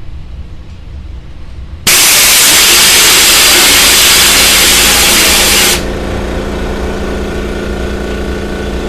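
Compressed air released from a Makita MAC2400 air compressor: a loud, even hiss starts suddenly about two seconds in and cuts off sharply about four seconds later. After it, the compressor's motor and pump keep running with a steady hum.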